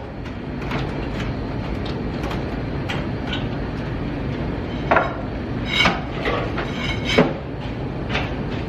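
A steady low rumble with sharp knocks about five seconds in, again near six seconds and just after seven: demolition work prying out a basement plank wall.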